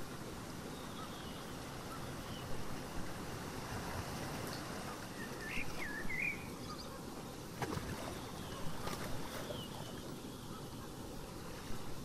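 Steady wash of ocean surf with a few short bird calls about halfway through, and a couple of brief sharp clicks soon after.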